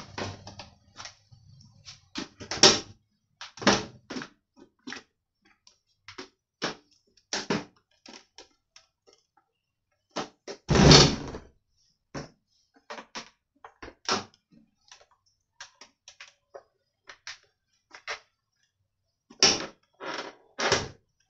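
Plastic clicks, snaps and knocks of a flathead screwdriver prying the top cover of an Imusa air fryer loose from its clips, coming irregularly, with one louder, longer knock about halfway through.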